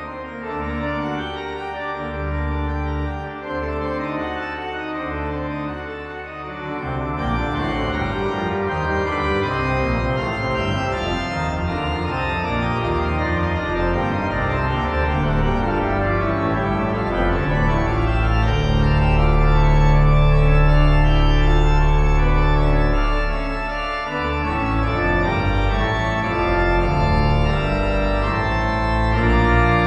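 Pipe organ playing: full sustained chords over held deep bass notes, with faster-moving notes coming in about seven seconds in and the sound growing louder after that.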